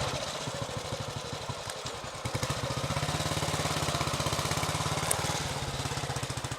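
Royal Enfield C.O single-cylinder motorcycle engine running with an even firing beat. Its speed and loudness pick up a little about two seconds in.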